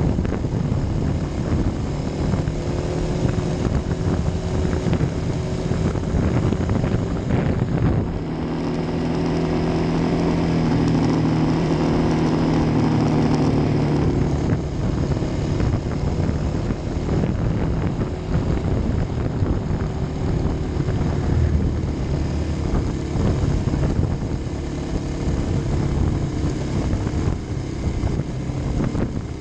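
Kawasaki D-Tracker's single-cylinder four-stroke engine running as the bike rides along a road, with wind rushing over the microphone. About a third of the way in, the engine note settles into a smoother, steadier tone for several seconds.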